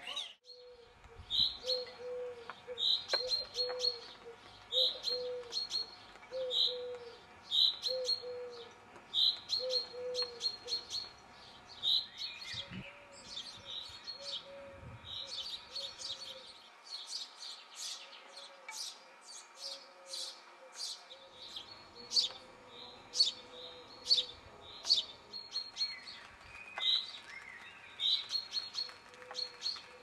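Small garden birds singing, one repeating a short high note about once a second, with many quick high chirps over it and a fainter low warbling call beneath.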